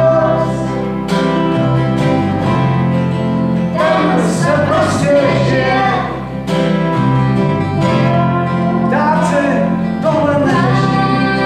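Live acoustic band playing a song: a woman singing over strummed acoustic guitars and an electric bass guitar.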